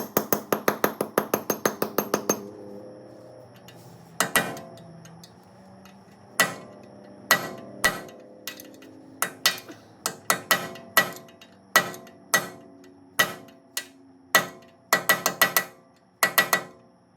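Hammer blows on a brass punch, driving stuck cone washers out of a Toyota wheel hub. A quick run of rapid strikes comes first, then single blows every half second to a second, then short bursts of quick strikes near the end. Each blow rings metallically.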